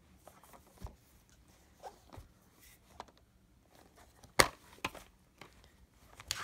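A plastic DVD case being handled and opened: light taps and rustles, then a sharp plastic snap about four seconds in as the case opens, followed by a few lighter clicks.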